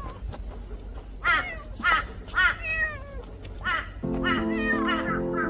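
Tabby cat meowing repeatedly, about five short rise-and-fall meows in a row. Background music with held notes comes in about four seconds in.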